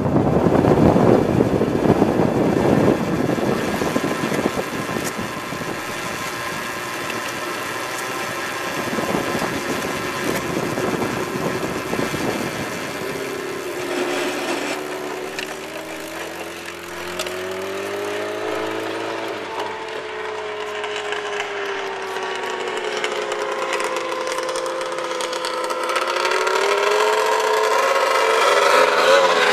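Kawasaki KZ drag bike's inline-four engine running at low revs, heard from right beside the engine. For the first dozen seconds a windy rush covers it. After that the engine note comes through clearly and wavers up and down, rising near the end as the throttle opens.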